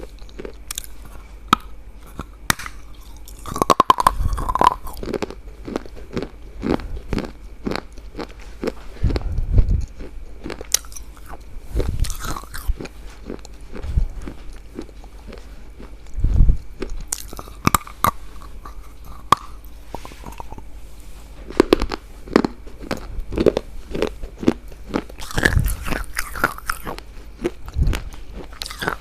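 Close-up crunching and chewing of hard, brittle food: a loud bite every couple of seconds, followed by crackly chewing.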